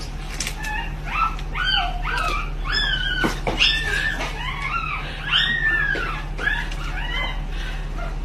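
A dog whimpering and yipping: a steady string of short, high-pitched calls, each rising and then falling in pitch, one every half second or so.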